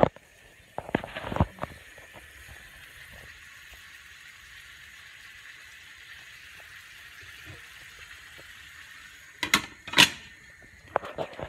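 Pork ribs sizzling in a pan on a gas hob, a steady hiss. Near the end a glass pan lid is set down on the pan with two sharp clinks.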